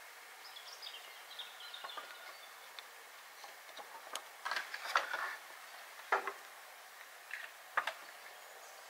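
Birds twittering faintly over a steady outdoor hiss, with a scatter of short sharp clicks and rustles in the middle and toward the end.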